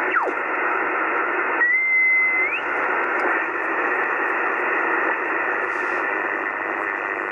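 Kenwood TS-50 HF transceiver receiving on the 40-metre band in LSB, its speaker giving out steady band hiss cut off above and below by the narrow SSB filter as the tuning dial is swept. A whistle slides down in pitch just after the start, and another holds for about a second before rising, about two seconds in, as the dial passes signals.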